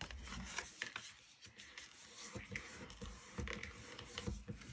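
Faint rubbing and scraping of cardstock being handled and folded on a tabletop, with small irregular taps as it is pressed flat.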